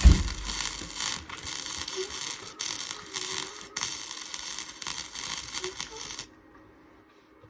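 Electric arc welder crackling and hissing as a weld bead is run on the steel clothesline post, cutting off suddenly about six seconds in. A low thump at the very start.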